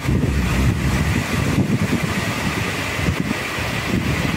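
Storm wind blasting the microphone in a loud, gusty rumble over the steady hiss of heavy rain and hail.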